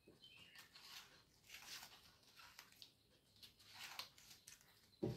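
Faint snips of scissors cutting thin paper into strips, several short cuts spread through, with a brief low thump near the end.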